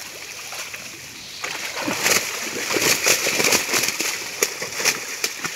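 Water splashing and sloshing in shallow muddy water as a seine net is hauled in hand over hand. It grows louder about a second and a half in, with many sharp splashes.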